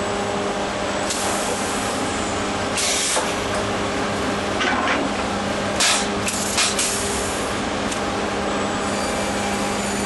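Sawmill line running: a steady machine hum under constant mechanical noise, with several short hissing bursts in the middle.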